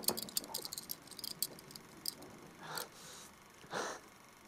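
Fast, light clicking and rattling for about the first second and a half, then a man's two short, strained breaths, about a second apart, as he lies in pain.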